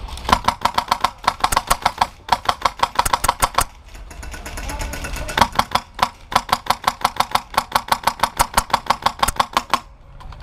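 HPA-powered airsoft rifle (a custom VFC Avalon VR16) firing rapid strings of shots: two long volleys of sharp, evenly spaced cracks with a pause of about a second and a half in the middle.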